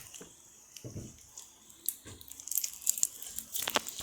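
Butter slime being handled: scattered soft crackles and clicks, coming more often in the second half.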